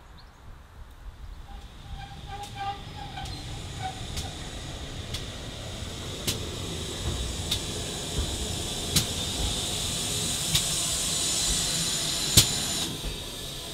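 Steam hissing from a passing GWR Hall-class steam locomotive, growing louder as it draws level and dropping off sharply near the end. Sharp wheel clicks over rail joints come about every second and a half and space out as the train slows.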